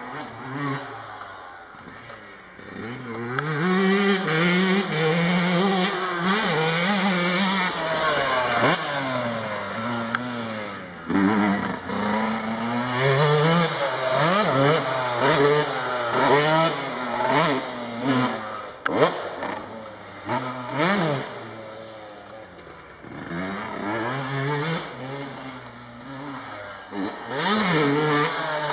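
Yamaha YZ125 two-stroke motocross bike revving hard and backing off again and again as the rider works the throttle over jumps and through turns. The engine pitch climbs and drops many times, and the sound grows and fades as the bike comes near and moves away.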